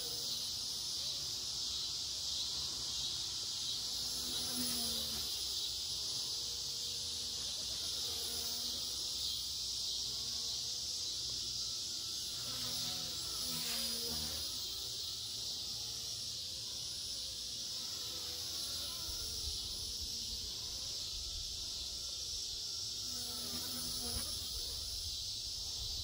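Blade mCP X BL2 micro RC helicopter in flight, its brushless motor and rotor giving a high, insect-like buzzing whine that shifts in pitch as it manoeuvres, over a steady high chirring background.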